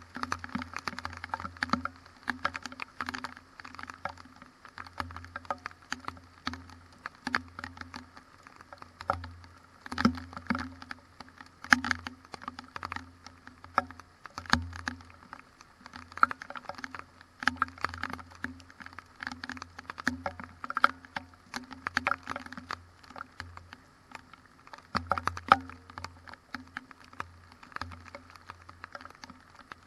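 Rain pattering on a GoPro camera in a windy thunderstorm: irregular sharp taps, with gusts of wind rumbling on the microphone now and then.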